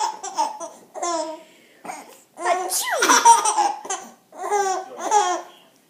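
A baby laughing in four or so bursts of giggling belly laughter, with short pauses between them.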